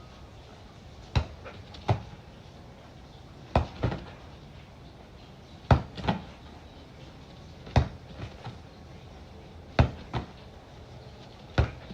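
A volleyball being hit back and forth in a rally: sharp smacks in pairs about every two seconds, the second hit of each pair a little softer and coming a fraction of a second after the first.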